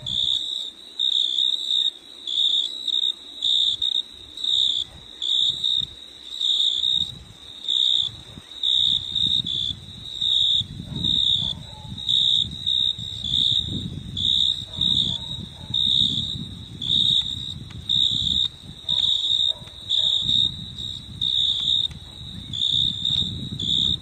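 An insect chirping in a steady rhythm at one high pitch, about one and a half chirps a second. A low rumbling noise builds underneath from about nine seconds in.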